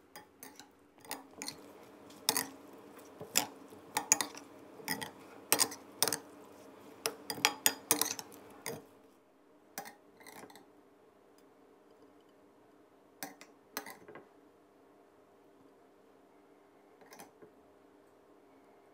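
Metal spoon clinking and scraping against a glass bowl while tossing a salad: irregular clinks for about nine seconds, then only a few scattered clinks. A faint steady hum runs underneath.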